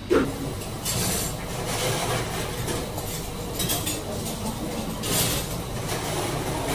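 Steady restaurant room noise with a few light clinks of cutlery and dishes.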